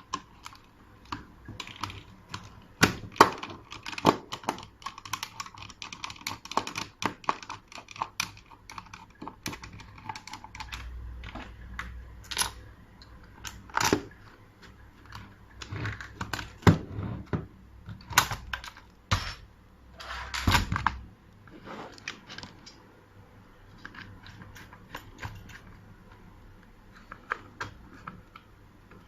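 Irregular clicks, taps and knocks of metal lock parts being handled and fitted while a mechanical push-button door lock is installed on a door, with a few louder knocks.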